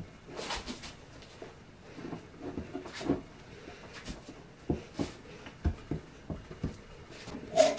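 Pipe clamps being tightened on a glued-up block of wood strips: a string of separate light clicks and knocks from the metal clamp parts and the wood. The loudest is a clack near the end with a short ring.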